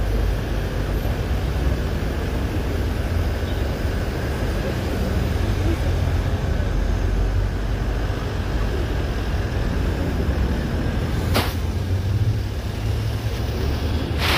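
Steady low rumble of a bus's engine and road noise, heard from inside the moving bus. Two sharp knocks cut through it, one about eleven seconds in and one at the very end.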